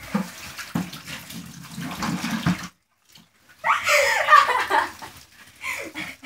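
Water sloshing with rubbing and handling noise, cut off by a moment of silence, then a girl laughing loudly about four seconds in, with a shorter burst near the end.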